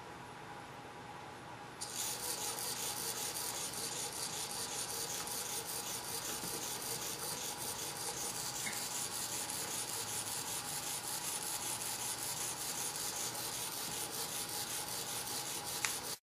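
Small hobby servo motor chattering in a fast, steady rasp, jittering back and forth instead of sweeping because its step delay has been cut to 1 ms. The rasp starts suddenly about two seconds in and cuts off at the end.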